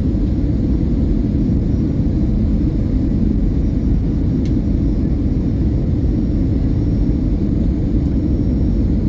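Airliner cabin noise in flight: a steady, loud, low rumble from the engines and the air rushing past.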